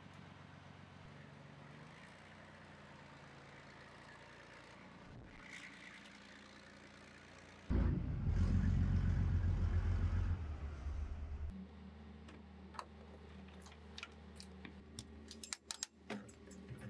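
Heavy military truck engine running with a low hum. About eight seconds in, a sudden loud low rumble lasts about three seconds and then dies away, and near the end come several sharp clicks and clanks.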